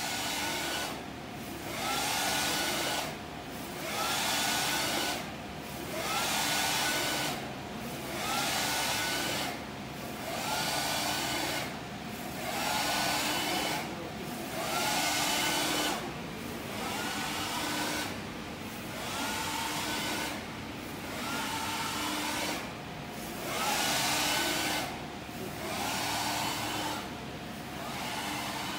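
Wide-format inkjet printer printing on PET film: the printhead carriage whirs back and forth in even passes about every two seconds. Each pass starts with a short rising motor whine, and there is a brief dip as the carriage turns.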